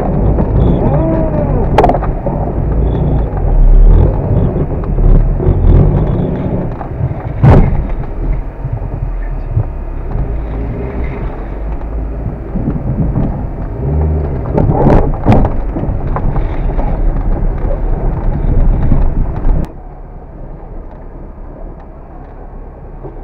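VAZ 21099 car engine revving up and down as the car, stuck in a bog, spins its wheels in the mud, with several sharp knocks from the car. The engine sound drops off suddenly near the end.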